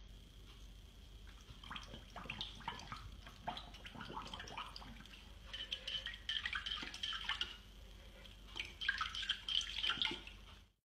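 A puppy pawing at the water in its dog bowl: faint small splashes and drips with light taps of the paw against the bowl, coming and going in clusters.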